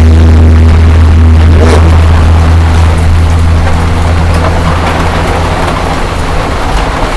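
A loud, steady low rumble that fades about five seconds in, while a hiss of heavy rain grows louder.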